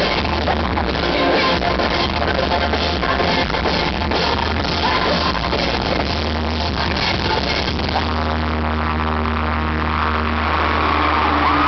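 Rock band playing live, loud, with drums, distorted electric guitars and a woman singing. About eight seconds in the full band gives way to long held notes, with a sliding tone near the end.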